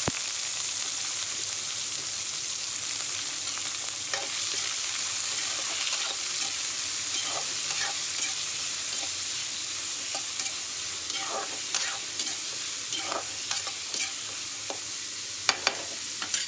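Chopped onions sizzling in hot oil in a kadai while a spatula stirs and scrapes against the pan, with a few sharp clinks near the end.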